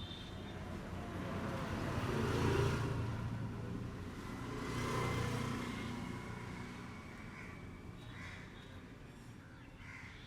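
Road traffic passing: two vehicles rise and fade, the louder about two and a half seconds in and the other about five seconds in, with a low engine rumble under each.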